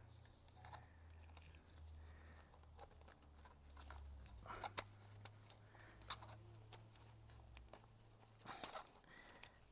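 Faint clicks and rustling from gloved hands pushing a Suzuki DR650 fork cap down against the fork spring and threading it into the fork tube, over a low steady hum. There are two short, louder bursts of noise, one about halfway and one near the end.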